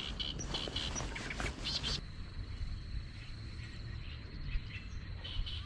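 Outdoor ambience of small birds chirping in short repeated notes over a steady low rumble. Partway through, the sound changes abruptly and a thin, steady high tone holds for about three seconds before the chirps return near the end.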